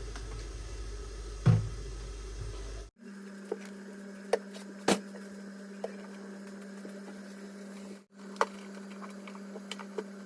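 Kitchen work sounds: a few sharp knocks and clicks, the loudest a thump about a second and a half in, over a steady hum whose pitch shifts at abrupt cuts.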